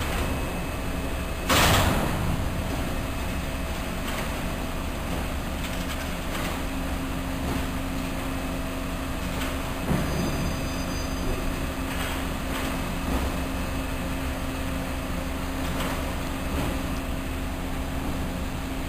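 Steady low hum of container-handling machinery on a container gantry crane working over a ship's hold. A sharp metallic bang comes about a second and a half in, and a smaller knock about halfway through.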